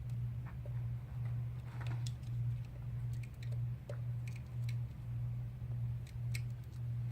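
Small clicks, ticks and snips of hand tools working adhesive tape on a phone, over a steady low hum that pulses about once a second.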